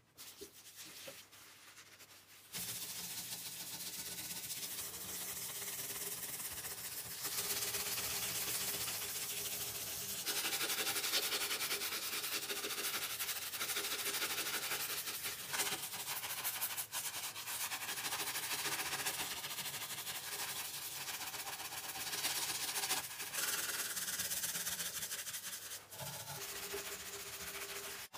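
A brush scrubbing a grimy ceramic washbasin and the base of its tap, a steady scratching that starts about two and a half seconds in.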